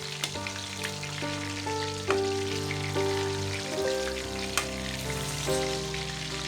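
Food sizzling and crackling as it fries in hot oil in a pan, under background music with a melody and bass line.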